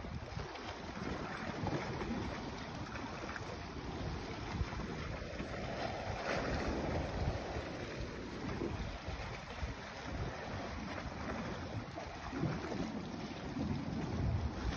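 Wind rumbling on the microphone over the wash of sea water, swelling briefly louder about six seconds in.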